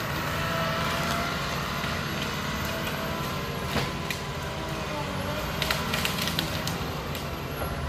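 Heavy equipment on a wildfire line, a tracked machine with its diesel engine running steadily under a wavering mechanical whine, while wood and brush crack and snap as it works through the timber, sharpest a little under 4 s in and in a burst around 6 s.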